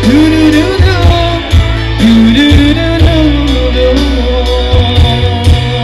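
Loud live band music with a male singer, a Minangkabau pop song played through a concert sound system, over heavy bass and a steady drum beat.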